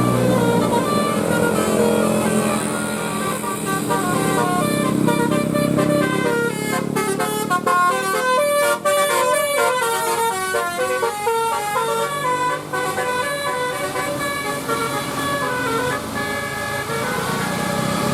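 Bus's telolet basuri horn, a multi-trumpet musical air horn, playing a long tune of short stepped notes, with several notes sounding together in the middle.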